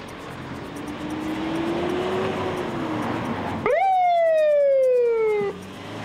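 A passing vehicle's noise, then a loud siren-like tone that starts suddenly, slides steadily down in pitch for about two seconds, and cuts off.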